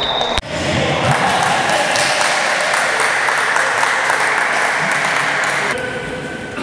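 Clapping and cheering from a small crowd, greeting a goal in a futsal match. It starts abruptly about half a second in and cuts off near the end.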